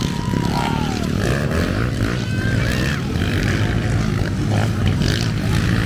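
Motocross dirt bike engines running and revving around the track, heard as a steady low drone with a few faint rising and falling whines as the bikes change speed.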